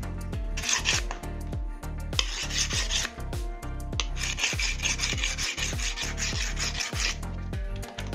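A steel knife blade scraping with a rasping sound in three strokes, the longest about three seconds near the end, over background music with a steady beat.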